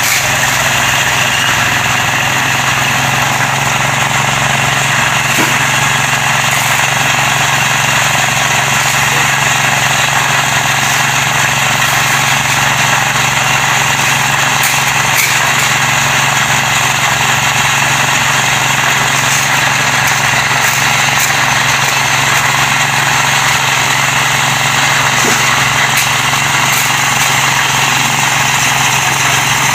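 One-bagger concrete mixer's small engine running steadily at a constant speed, turning the drum, with a low, unbroken hum.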